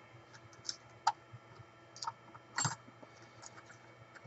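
Small metal clicks and taps as a screwdriver and fingers work the clutch cog in the drive wheel hub of a Milwaukee portable band saw: about five scattered clicks, the loudest a little past halfway.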